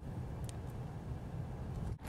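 Wind buffeting the microphone out on open water: a steady, unsteady low rumble with a faint hiss above it, and a single light tick about half a second in.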